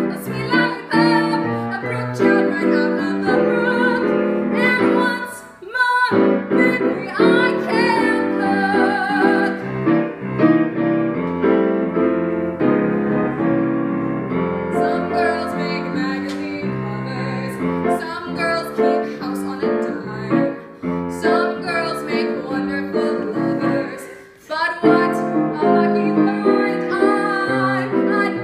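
A woman singing a musical-theatre song, accompanied on grand piano.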